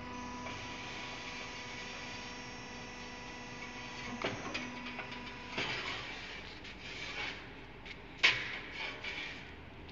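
Diamond saw blade stress-testing and rolling machine running with a steady whine that stops about halfway through, followed by metal scraping and clanks as a steel plate slides across its steel table, with one sharp, loud clank near the end.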